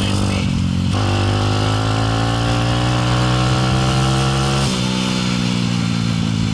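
Motorcycle engine pulling under acceleration: its pitch climbs steadily for about four seconds, then drops suddenly near the end, as at a gear change. A steady rushing hiss runs underneath.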